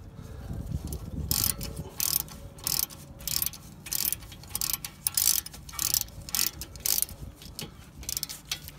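Hand ratchet with a 14 mm socket clicking in repeated strokes as it runs a brake caliper guide pin bolt tight. Each back-swing gives a short rattle of clicks, about every two-thirds of a second.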